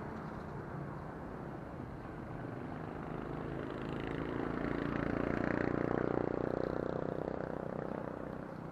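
A motor vehicle's engine passing by: it swells about four seconds in, is loudest around six seconds in, and fades toward the end, over a steady background hum of traffic.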